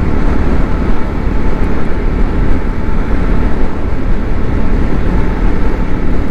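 Wind buffeting the rider's microphone over the steady running of a Triumph Scrambler 400 X's single-cylinder engine, cruising in third gear.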